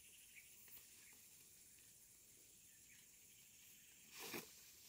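Near silence: a faint steady hiss of outdoor ambience with a few soft clicks, and one short rustle about four seconds in.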